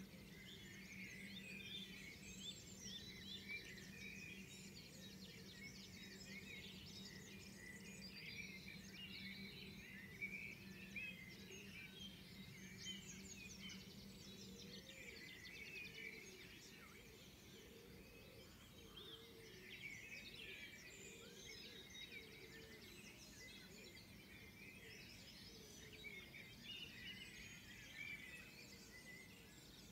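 Dawn chorus: many songbirds singing at once, faint, with overlapping high chirps and trills throughout.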